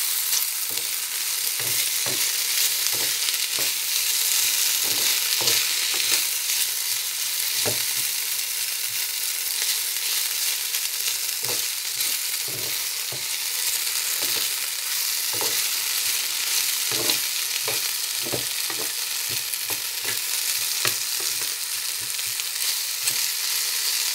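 Julienned potato strips frying in hot oil in a frying pan, a steady sizzling hiss, while a metal spatula stirs them with irregular scrapes and taps against the pan.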